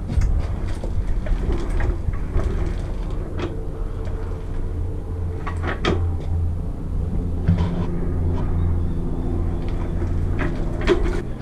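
Victa Special lawnmower's two-stroke engine running steadily, with a few sharp clicks or knocks scattered over it.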